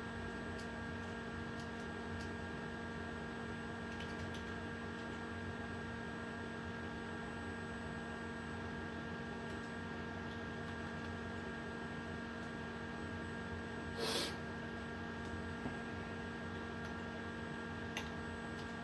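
Steady electrical hum with several fixed tones, with a few faint clicks from a computer keyboard and mouse in use. There is one brief, louder rustling noise about three quarters of the way through.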